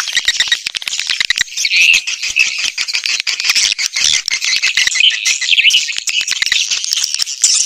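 Playback of edible-nest swiftlet calls: a dense, rapid chatter of high chirps and clicks. It is a swiftlet lure sound, played to draw swiftlets to roost and nest in a swiftlet house.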